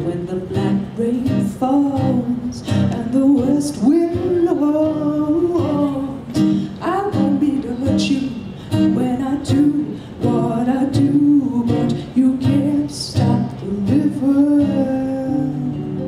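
A woman singing while she accompanies herself on acoustic guitar.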